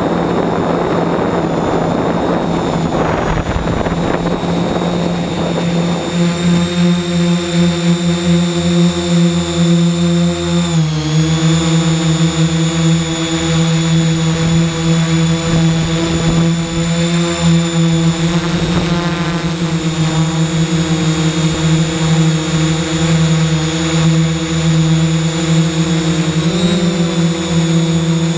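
3DR X8 multirotor's motors and propellers humming steadily, close up from on board, in a blend of several pitches. A rushing noise lies over the hum for the first few seconds. The pitch dips and shifts briefly about eleven seconds in and again near the end.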